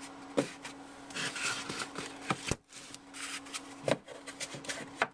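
Cardboard packaging rustling and scraping as it is handled and slid off the iPad mini's retail box, with several sharp knocks of cardboard against a wooden desk.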